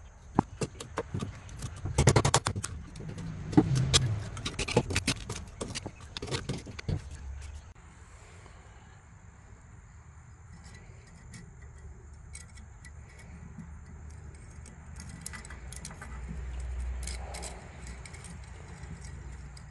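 A dense run of sharp clicks and clinks for about the first seven seconds, then only occasional clicks over a quiet background with a faint, steady high tone.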